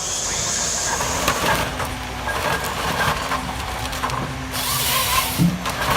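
Heavy machinery working, with scattered knocks and clatter over a low steady hum, and a short hiss about four and a half seconds in.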